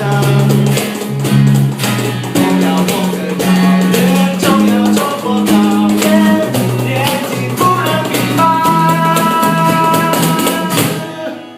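A band playing an instrumental passage at rehearsal, guitar over held bass notes and a drum kit keeping a steady beat, stopping abruptly about eleven seconds in.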